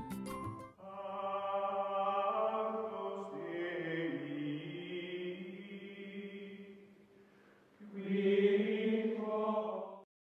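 Chanted vocal music: voices hold long, slowly shifting notes, after a brief tail of a plinking tune at the start. The voices fade low about seven seconds in, swell again on one more held chord, and cut off abruptly near the end.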